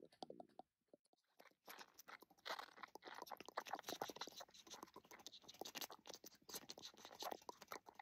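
Squishy, slimy bug sound effect: a dense run of quick wet clicks and crackles that starts after a brief gap about a second in.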